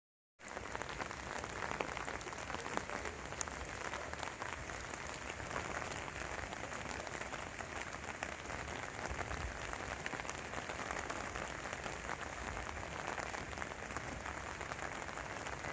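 Heavy rain falling in a steady, dense patter; it starts suddenly about half a second in and holds even throughout.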